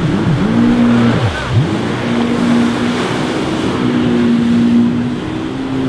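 Personal watercraft engine doing tight donuts on the water. Its pitch swoops up and down with the throttle for the first second and a half, then settles into a steadier drone.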